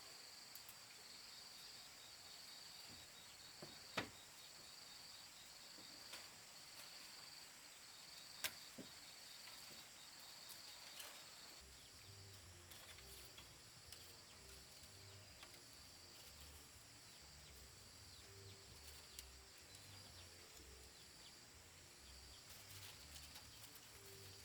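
Faint forest ambience of insects trilling: steady high bands with a regular pulsing chirp. There are two sharp clicks, about 4 and 8 seconds in. From about halfway, another pulsing call and a low repeated throb join in.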